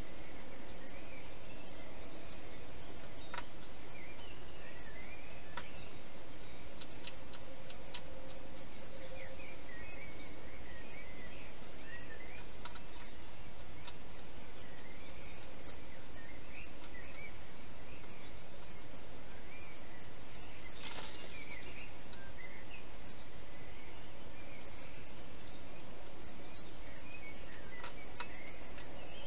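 Scattered faint bird chirps over a steady hiss, with a few soft clicks and a short rustle about two-thirds of the way through.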